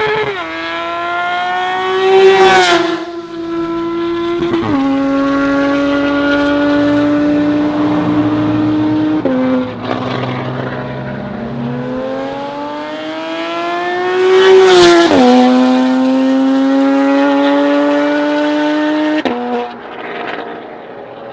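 High-performance sports car engine running through a near straight-through custom exhaust, accelerating hard twice. Each time the pitch climbs to a loud peak, then drops in steps as the gears shift up, and it holds a steady pitch while cruising in between.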